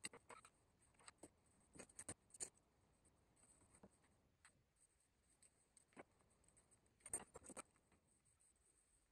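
Faint, scattered clicks and light knocks of F-clamps and wooden slats being handled on a workbench, a cluster in the first couple of seconds and another a little after the middle.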